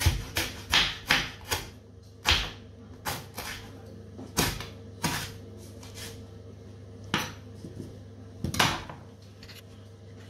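Kitchen knife chopping onto a wooden cutting board: a quick run of sharp knocks in the first second and a half, then single chops about once a second, thinning out toward the end, over a faint steady hum.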